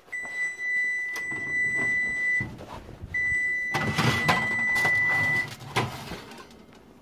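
Frigidaire electric range's oven timer beeping after counting down to zero: two long, steady, high beeps, each a couple of seconds long. During the second beep comes a noisy stretch as the oven door is opened and the wire rack with the foil is pulled out.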